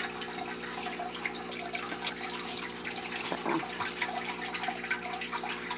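Aquarium water trickling and bubbling steadily over a low, steady hum, with a single click about two seconds in.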